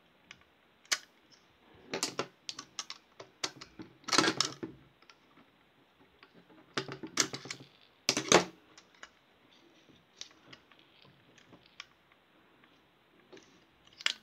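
Plastic housing and parts of a plug-in night light clicking and scraping as it is handled and worked open by hand, in irregular bursts of sharp clicks, loudest about four and eight seconds in, with scattered light ticks between.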